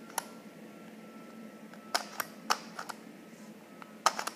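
Plastic 3x3 puzzle cube being turned by hand, its layers clicking in short irregular clusters: one click just after the start, a run of clicks about two seconds in, and three quick clicks near the end.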